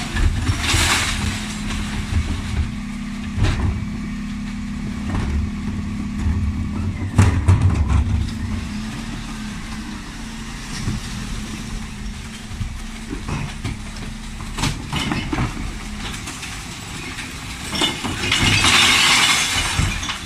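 Dennis Elite 6 refuse truck running with a steady hum while its Terberg OmniDEKA lift tips wheelie bins into the rear hopper. Glass bottles, jars and cans crash into the hopper near the start and again near the end, with a single loud knock in between.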